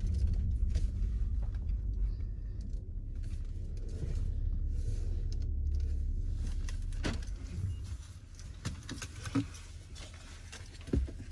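Low rumble of a car heard from inside the cabin as it pulls into a parking space and stops. The rumble drops off about seven seconds in, followed by a few sharp clicks and knocks.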